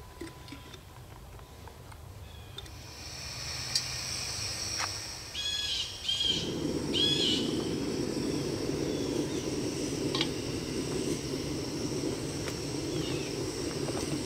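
Single-burner canister camp stove catching about six seconds in and then burning with a steady rushing hiss. A bird chirps a few times just before it lights.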